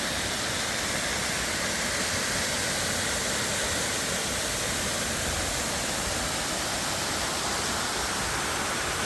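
Madison Falls waterfall: water pouring down in a steady, unbroken rush.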